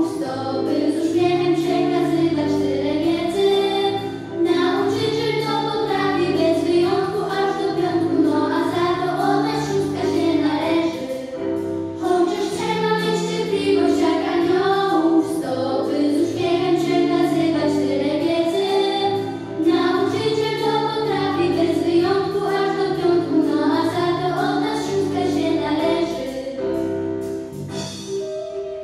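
Group of young girls singing a song together over instrumental accompaniment; the music fades near the end.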